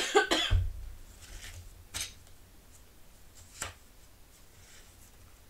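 Handling of a spiral-bound sketchbook: a burst of paper rustling and knocks with a dull thump about half a second in, then two short taps, about two and three and a half seconds in, with faint rustling between.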